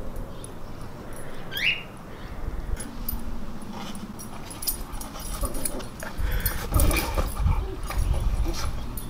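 Husky and Chihuahua play-wrestling on an elevated mesh dog bed: a short high yelp about one and a half seconds in, low dog vocal sounds, then heavier scuffling and bumping on the bed in the last few seconds.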